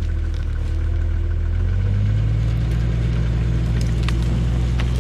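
Vehicle engine running steadily under load, its pitch stepping up about two seconds in and holding there, while it drags logs by a chain.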